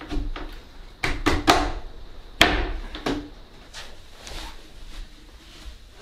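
Sharp wooden knocks and thumps of a white flat-pack nightstand being handled and set down, several in quick succession in the first three seconds with the loudest about two and a half seconds in, then softer bumps.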